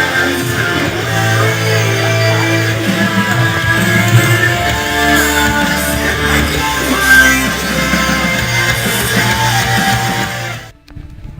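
Rock music with guitars and a steady bass line, cutting off abruptly near the end.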